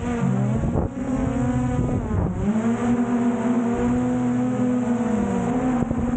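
Quadcopter drone's electric motors and propellers whining close overhead, a steady multi-tone buzz. Its pitch dips twice in the first few seconds as the throttle changes, then settles steady and higher.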